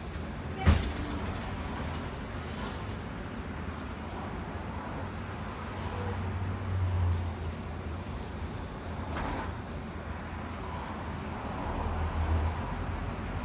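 A bus on the move: a steady low engine and road drone with a sharp knock about a second in. The engine note swells twice, near the middle and near the end.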